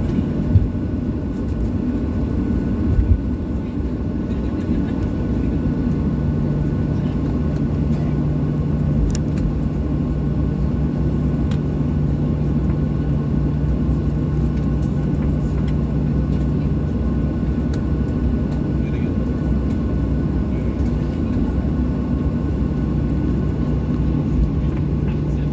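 Cabin noise inside a Boeing 737-800: a steady low rumble of the airliner's engines and airframe, with a steady hum that grows stronger about five seconds in.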